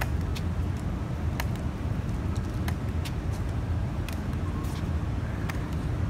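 Aluminium underarm crutches and footsteps on wet pavement: irregular sharp clicks and taps, about one or two a second, over a steady low street rumble.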